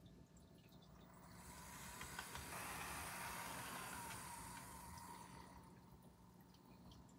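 Athearn HO-scale GE AC4400 model locomotive running on the track, its flywheel-drive motor and wheels whirring. The whir swells as the model passes close and then fades, with a faint whine that falls slightly in pitch.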